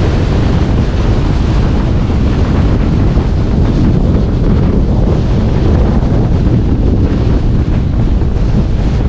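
Strong gusty wind buffeting the microphone: a loud, steady low rumble.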